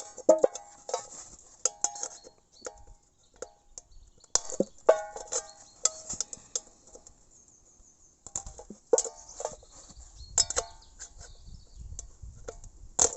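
Old-fashioned pointed can opener punching triangular holes in the side of a large tin can: groups of sharp metallic clicks and scrapes, each leaving the thin tin ringing briefly. The groups come every second or two, with a quieter gap in the middle.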